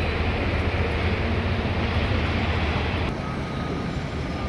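Steady low rumble of outdoor background noise with a hiss over it; the hiss eases about three seconds in.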